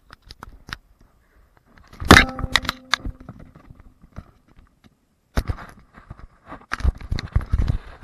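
Handling noise from an action camera being picked up, moved and set back down: close knocks, clicks and scrapes on the camera body. The loudest knock comes about two seconds in and rings briefly, and a denser run of knocks and rubbing fills the last two and a half seconds.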